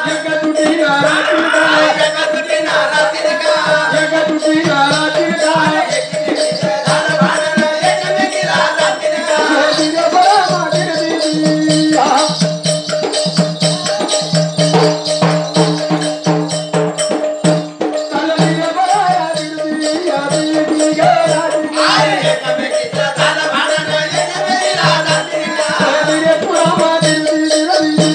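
Marathi folk devotional jagran music: voices singing in phrases over a steady drone, with drum and rattling percussion.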